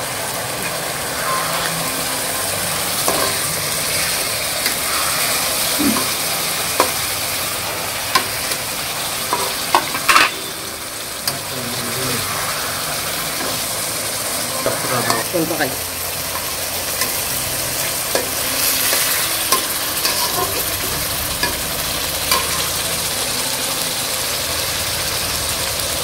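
Whole sarputi (olive barb) fish frying in oil and spiced gravy in a pan, with a steady sizzle. A metal spatula scrapes and taps against the pan now and then as the fish are moved.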